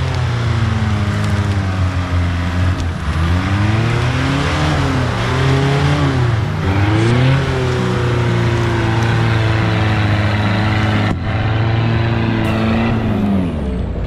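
Off-road 4x4's engine revving hard under load, its pitch rising and falling again and again, with the mud tyres spinning and throwing mud. The sound breaks off abruptly about eleven seconds in, and the revving picks up again straight after.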